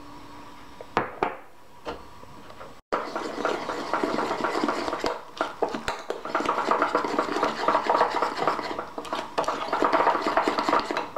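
A metal spoon stirring melted marshmallow and butter in a ceramic bowl, scraping and clinking against the sides in quick, continuous strokes. A few light knocks come first, before the stirring starts about three seconds in.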